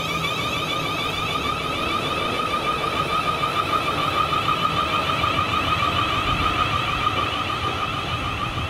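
Warbling electronic warning alarm, a steady pitch with a fast wobble, most likely a level crossing alarm sounding while the barriers are down. Under it runs the low rumble of a South Western Railway Class 450 electric train pulling away.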